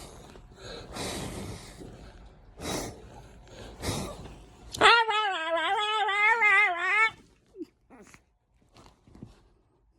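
Chihuahua puppy vocalising: a few short breathy snuffles, then about five seconds in a loud, wavering, warbling whine lasting about two seconds, its typical 'talking' sound, followed by a couple of faint short squeaks.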